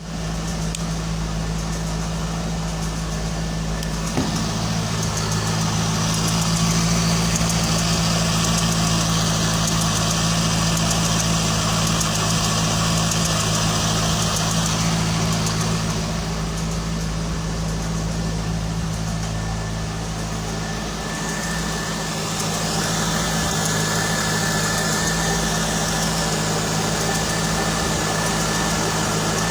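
2001 Corvette's 5.7-litre V8 idling after a startup, with a tick that the owner cannot place: piston slap, a pulley, or something else. The idle note shifts about four seconds in.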